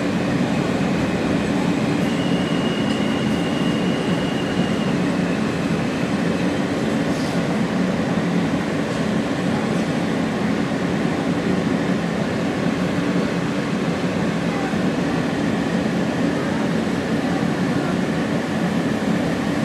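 R160 subway car running steadily at speed on the F line, heard from inside the car: a continuous rumble of wheels on rail. About two seconds in, a faint high whine comes in for about three seconds.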